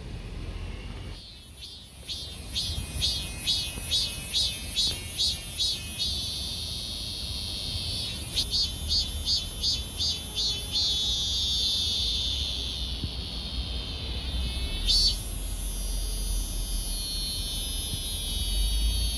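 Insects singing in quick rhythmic pulses that later give way to a steady high buzz, over a low steady rumble.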